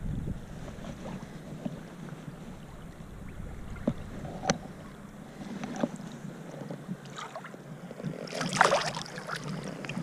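River water lapping and splashing around hands and a landing net as a trout is handled at the surface, with a few small ticks and a louder splash about eight and a half seconds in.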